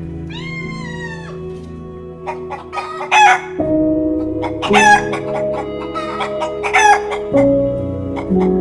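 Animal calls over soft, sustained background music: one long pitched call near the start, then a string of short, harsh cries.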